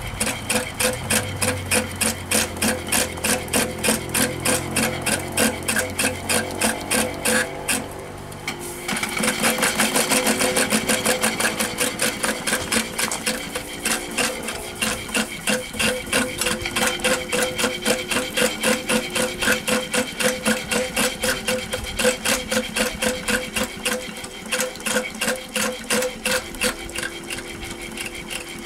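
2-inch scale Allchin live-steam traction engine running under steam, giving a rapid, regular mechanical clatter. About eight seconds in it dips briefly, then comes back louder with a hiss of steam.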